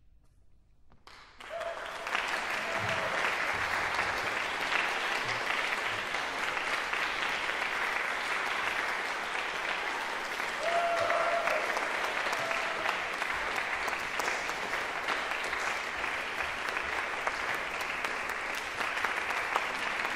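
Audience applauding in a concert hall, breaking out suddenly about a second in after near silence and continuing steadily.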